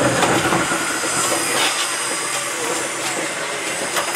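Santa Fe 3751, a 4-8-4 steam locomotive, moving slowly with a steady hiss of steam and a few sharp knocks from the running gear and rails.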